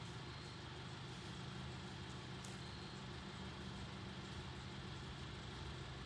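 Steady low mechanical hum of a running motor, over a faint constant hiss.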